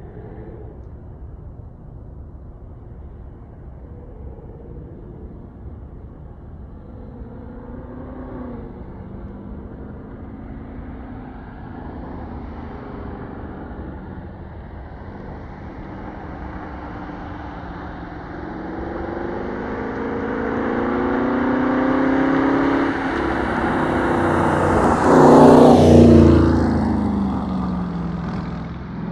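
Dodge Charger Daytona's Hemi V8 exhaust on a pass. It grows steadily louder as the car approaches, goes by loudest about 25 seconds in with its pitch dropping, then fades.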